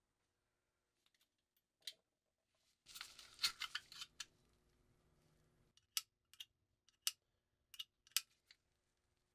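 Small metal parts of a rusty 1930s SOLO squeeze lighter clicking and scraping as it is squeezed and worked open by hand. A burst of scraping clicks comes about three seconds in, then half a dozen separate sharp clicks near the end.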